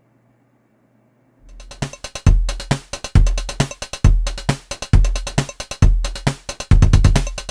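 Near silence, then about a second and a half in, electronic outro music starts with a steady, heavy drum-machine beat.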